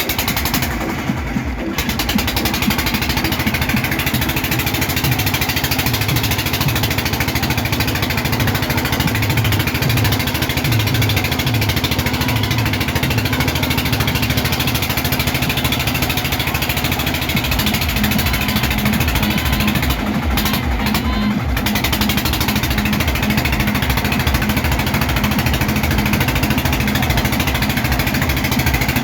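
A small boat engine running steadily, with a rapid low thumping beat under a loud even noise.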